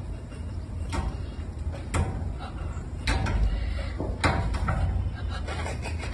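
A glass door knocking and rattling in its frame as a cat paws and pushes against the pane, a few sharp knocks about a second apart over a low steady rumble.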